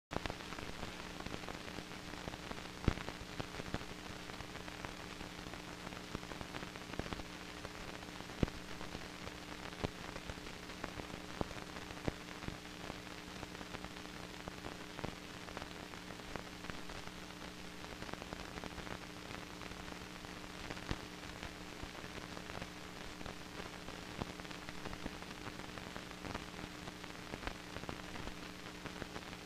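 Old film soundtrack noise with no program audio: a steady hiss and a low steady hum, sprinkled with frequent crackles and pops.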